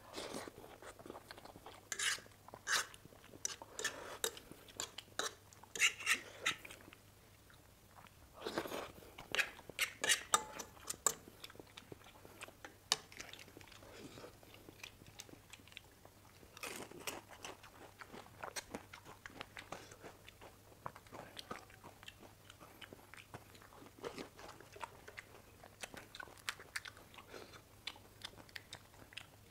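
Chewing and slurping a mouthful of masala Maggi noodles, with dense wet mouth sounds in the first part. Then the crisp cracking of hollow panipuri shells as fingers poke holes in them, a scattering of short sharp cracks.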